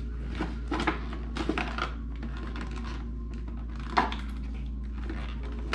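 Plastic cosmetics packaging clicking and rattling as lip glosses are worked loose from their holder: a cluster of light clicks in the first two seconds and a sharper click about four seconds in, over a steady low hum.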